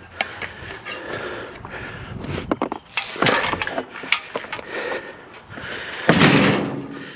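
Irregular knocks, clanks and scraping as a heavy piece of scrap metal is shifted and settled on a trailer, with two longer scraping or rustling stretches about three and six seconds in.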